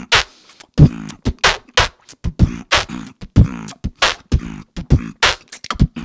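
Human beatboxing: a steady beat of mouth-made kick drums, hi-hats and the BMG snare, played with the lips tucked inward and the cheeks filled with air so the snare sounds louder. The hits come about three a second.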